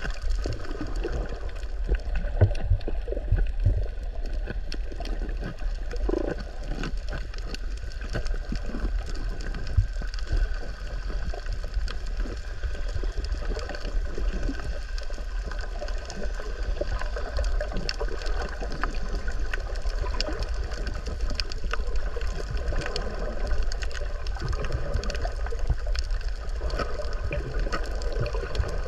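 Underwater ambience over a coral reef: a steady muffled low rumble of water with many scattered small clicks and crackles.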